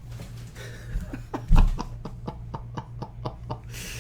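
A quick run of light, sharp clicks or taps, about three a second, each with a brief ring, and one louder thump about one and a half seconds in, over a steady low hum.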